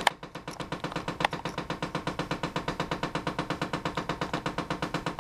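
The air-inlet (recirculation) door actuator motor in a 2006 Chevy Impala's dashboard knocking rapidly and evenly, about eight knocks a second, with the engine off. The owner believes the actuator is jammed, and it is cured by unplugging that motor. Two sharper clicks stand out, one at the start and one about a second in.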